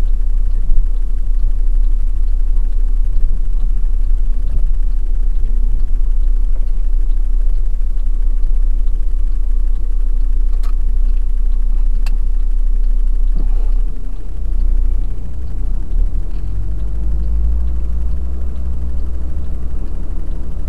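Truck's engine and road noise heard from inside the cab while driving: a steady low rumble that shifts and dips slightly about two-thirds of the way through. Two faint clicks a little past the middle.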